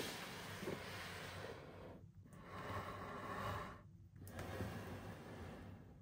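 Cardboard toy box being handled and turned over in the hands: three long swishing rubs of skin and box on card, each about two seconds, with short breaks between them.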